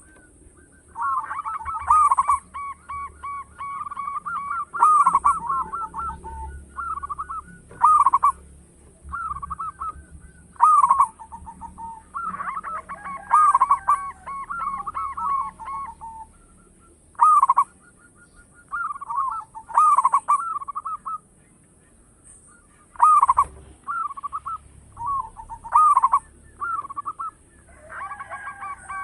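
Zebra doves cooing: phrase after phrase of quick, rippling coo notes, with a loud sharp note about every three seconds. At times the phrases overlap, as if more than one bird is calling.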